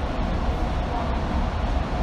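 MTR M-Train electric multiple unit running, heard from inside the car: a steady low rumble of wheels on rail and running gear, with a faint steady whine.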